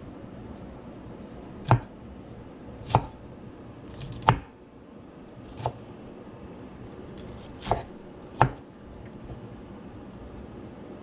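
A large kitchen knife cutting broccoli florets on a wooden cutting board: six sharp knocks of the blade striking the board, irregularly spaced.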